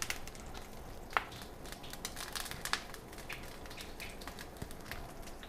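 Panko-crusted ahi tuna searing in a hot pan of olive oil: a quiet, steady sizzle with scattered crackles and pops.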